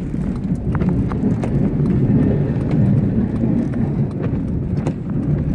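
Ford F-150 pickup with a snowplow pushing snow along a driveway, heard from inside the cab: a steady low rumble with scattered sharp knocks and rattles.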